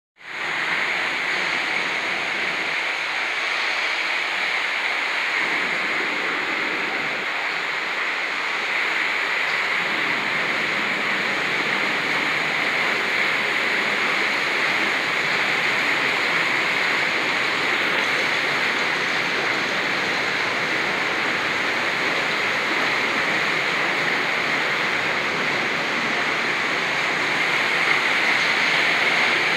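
Steady rushing of water flowing through the watermill, an even, unbroken noise.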